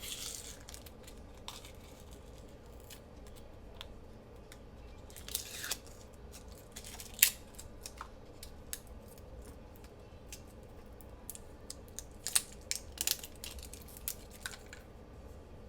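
Washi tape packaging being worked open: scattered small clicks, snips and crinkles of plastic wrap, the sharpest about seven seconds in and a cluster of them around thirteen seconds.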